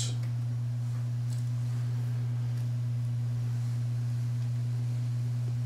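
A steady low hum, one unchanging tone with a fainter tone above it, and a few faint light ticks from trading cards being handled in the first few seconds.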